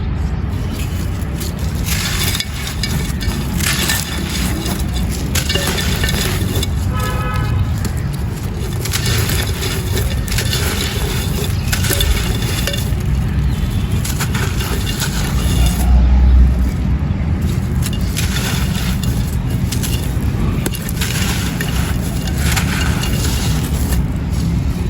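Dry white claypot clay crunching and crumbling in a run of repeated grainy crunches, over a steady low rumble.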